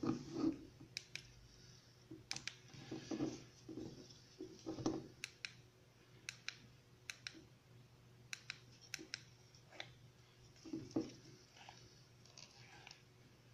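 Plastic clicks and handling noise from an LED headlamp being adjusted by hand: single sharp clicks at irregular intervals, several a few seconds apart, with short rubbing and rustling of the plastic housing and strap in between.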